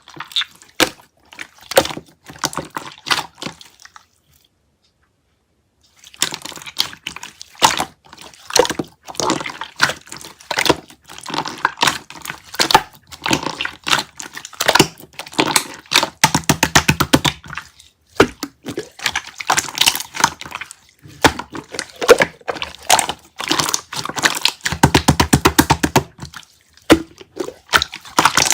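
Clear slime being squished and pressed by hand, making a stream of wet clicks and pops. There is a brief silence about four seconds in, and fast runs of crackling clicks around the middle and again near the end.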